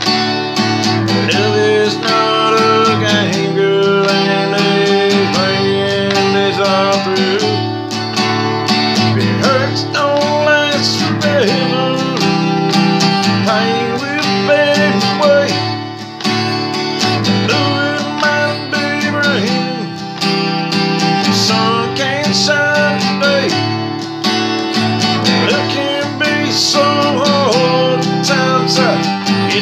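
A man singing to his own strummed acoustic guitar, a steady strumming pattern under a held, sliding vocal line.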